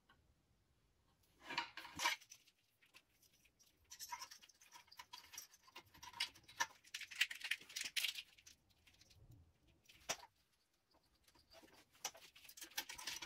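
Faint, scattered scratching, rustling and light clicks of hands handling the cables and hardware under the deck of an electric scooter, with a busier stretch in the middle.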